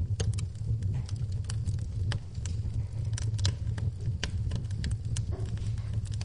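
Wood fire crackling in a fireplace: many sharp, irregular pops and snaps over a steady low rumble of the flames.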